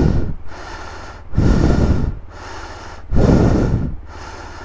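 A rider panting hard inside his helmet, out of breath from exertion: three heavy breaths, one about every second and a half to two seconds, over a steady low rumble.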